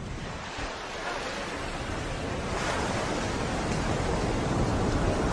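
Wind noise on the microphone: a steady rushing hiss with a low rumble, slowly growing louder.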